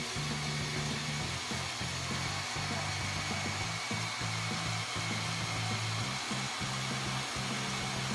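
LEGO Power Functions motors driving the 42076 hovercraft's plastic fans and propellers, a steady whirring hiss like a hair dryer with a faint high whine, over background music with a stepping bassline.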